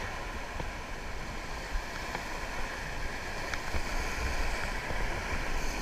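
Steady rush of river water around a rafting boat, with a low rumble.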